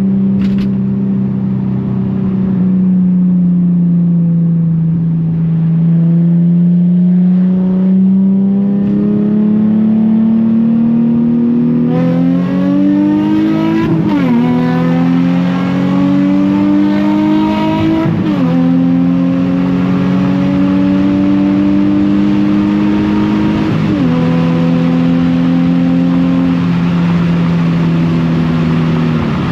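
Nissan 350Z's 3.5-litre V6 running steadily, then pulling hard through the gears from about twelve seconds in. The engine note climbs, dips sharply at three upshifts, and falls away as the throttle is lifted near the end.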